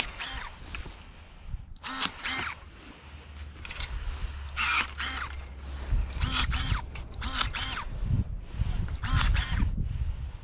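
Battery-powered electric pruning shears cutting grapevine canes: short motor whirs, one for each cut, each bending in pitch as the blade closes through the wood, about eight cuts at roughly one-second intervals.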